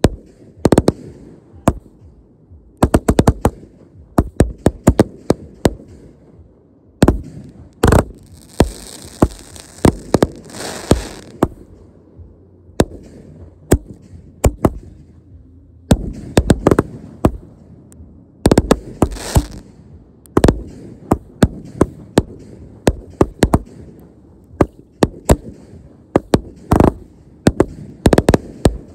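Consumer fireworks going off in a show: a long run of sharp launch thumps and aerial bursts, often in quick succession, with a couple of seconds of high hissing about eight seconds in and again past the middle.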